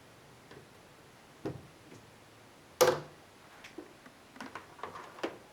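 Handling noises at a twin-tub washing machine whose spin has just stopped: a knock, then one loud clack a little before the middle, then a run of lighter clicks and rustles.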